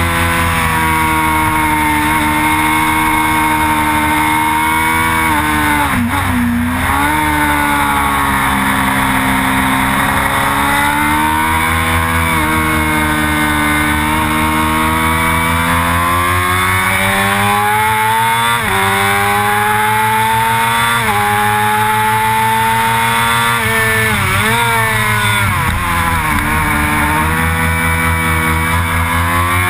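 Sportbike engine at high revs on a track, its pitch climbing steadily under acceleration and dropping sharply at upshifts, with deep dips and quick rises a few seconds in and again later on as it downshifts for corners. Wind rushing over the bike runs underneath throughout.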